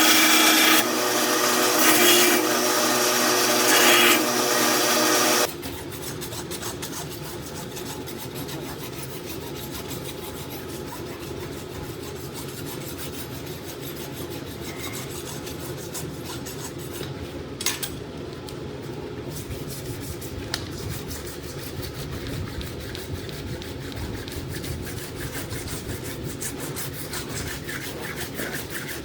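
A small power tool runs loudly for about five seconds and then cuts off suddenly. Steady scraping follows, a farrier's rasp or tool working the horse's hoof.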